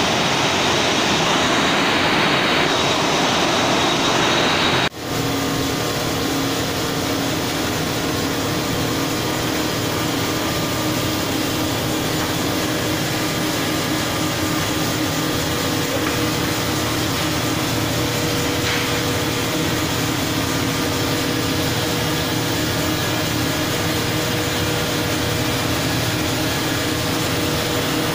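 Fish-processing plant machinery running steadily. A loud hiss for about the first five seconds cuts off abruptly, then a steady drone with faint hum tones continues.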